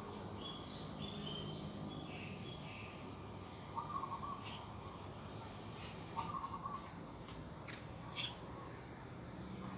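Garden birds calling: high chirps in the first few seconds, then a lower call twice, about two seconds apart, and a few short sharp chips near the end.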